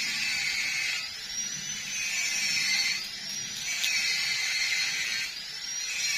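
A small high-speed electric tool whirring, its whine rising and falling every second or two.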